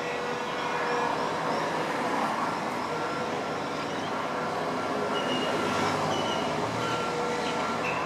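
Steady noise of vehicles passing by, with no speech.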